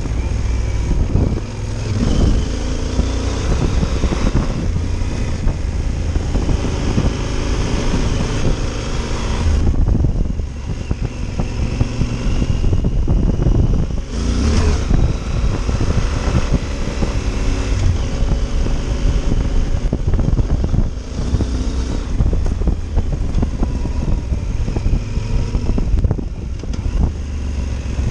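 Yamaha Super Tenere's parallel-twin engine running as the motorcycle rides along a dirt road, under a steady low rumble, easing off briefly a few times.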